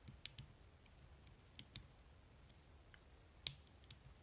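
Small, sharp metal clicks of a bent-wire flag pick working the pins of an Agent 15-pin dimple lock cylinder while it is held under tension. About a dozen irregular ticks, the loudest about three and a half seconds in, as the last pin is being set.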